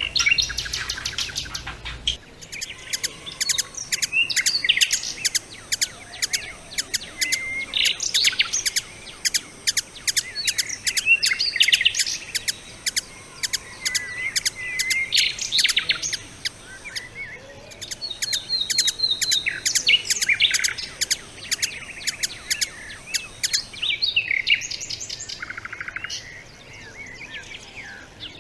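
Songbirds singing, many rapid chirps and short whistled phrases overlapping in a continuous chorus, with a brief lull about two thirds of the way through. The background changes abruptly about two seconds in and again near the end.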